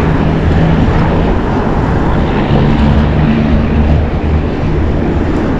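Loud, steady street noise: a low rumble with a steady low hum running under it, as of traffic.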